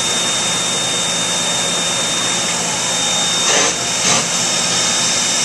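Standing steam locomotive hissing steadily, with two short louder bursts of hiss a little past the middle.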